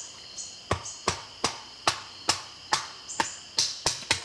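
A steady run of sharp wooden knocks, about ten in four seconds, as a Swiss Army Zippo Bushcrafter knife is struck into a piece of wood to cut it down. Crickets chirp steadily behind.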